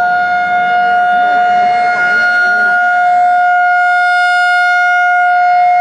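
Outdoor civil-defense warning siren sounding a steady, unwavering tone, its routine first-Saturday-of-the-month sounding.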